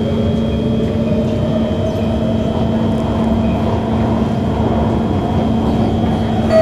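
Singapore MRT train running, heard from inside the passenger car: a steady rumble of running noise with a constant hum and a whine that rises in pitch over the first couple of seconds, then holds level.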